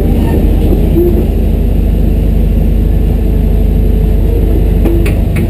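Compact excavator's diesel engine running steadily, heard from inside the cab while the machine travels on its tracks. A few light clicks come near the end.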